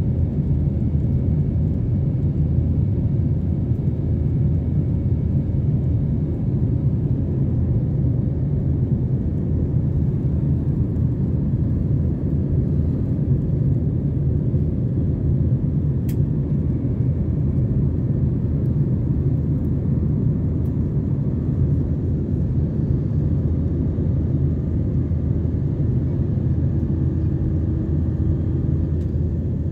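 Steady low rumble of an Airbus A321-231's IAE V2500 turbofan engines and airflow heard from inside the cabin by the wing during the climb after takeoff.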